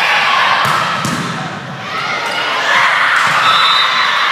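Gym crowd and players shouting and cheering during a volleyball rally, swelling twice, with a few sharp thuds of the ball being hit.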